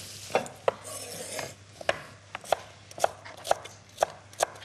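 Chef's knife chopping shallots coarsely on a wooden cutting board: a series of sharp knocks, about two a second.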